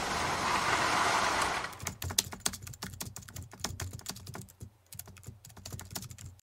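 Computer keyboard typing sound effect: a run of quick, irregular key clicks that stops abruptly just before the end. It follows a rushing noise in the first couple of seconds.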